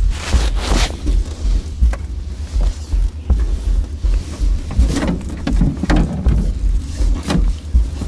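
Wind buffeting the microphone in gusts, with splashing and dripping water as a wet gill net is pulled by hand over the side of a small boat. There are a few sharper splashes or rustles near the start, about five seconds in and about seven seconds in.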